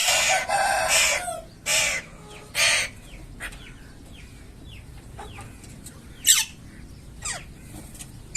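A young parrot calling in harsh squawks: one long rough squawk at the start, two shorter ones about two and three seconds in, then two sharp short calls later, with faint chirping in between.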